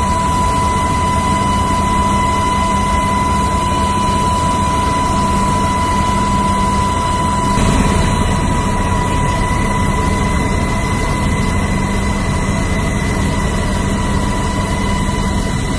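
Steady aircraft engine and cabin noise with a constant high whine, as heard from inside an aircraft filming from the air. The whine drops out about halfway through, while the engine noise carries on.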